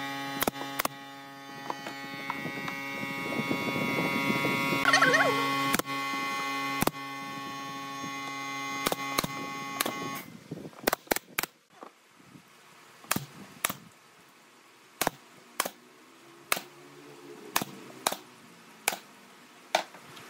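A pneumatic brad nailer firing into pine boards: a series of sharp clicks about a second or two apart. A steady electrical hum sits under them for the first half and cuts off suddenly about halfway through.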